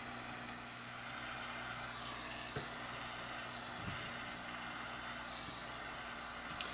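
Oxygen-propane Smith mini torch flame burning with a quiet, steady hiss while it heats gold for fusing, over a steady low hum, with two faint ticks a little over a second apart.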